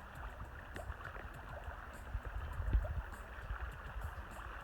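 Flowing river water, a steady rushing hiss, with low rumbling thumps that swell about two to three seconds in.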